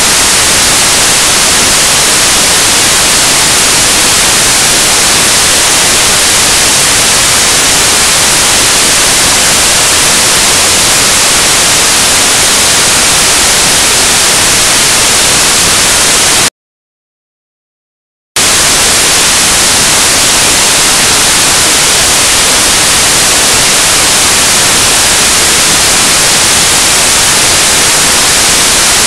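Loud, steady static hiss from the recording, with no game sounds standing out above it. It cuts off to dead silence about sixteen seconds in and comes back about two seconds later.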